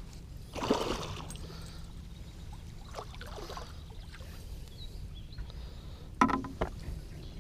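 Hooked northern pike splashing and thrashing at the water's surface beside the boat: a burst of splashing about a second in, a weaker one around three seconds, and a sharper flurry of splashes near the end, over a low steady rumble.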